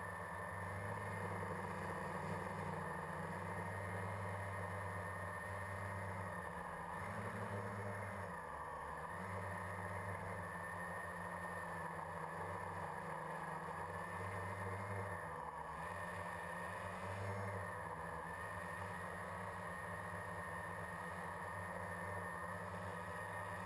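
Quadcopter's electric motors and propellers droning steadily, heard from the GoPro mounted on it, the pitch dipping briefly a few times as the throttle changes.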